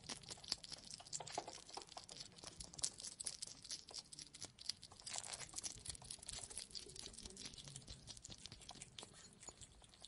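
Hedgehog rustling and scrabbling through dry litter and bedding: faint, dense crackling made of many small clicks.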